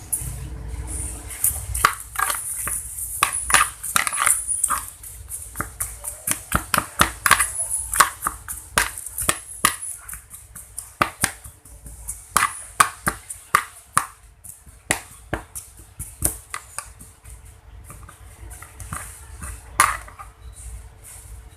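Homemade slime being squeezed and stretched by hand, making many quick, irregular sticky clicks and pops over a steady low hum.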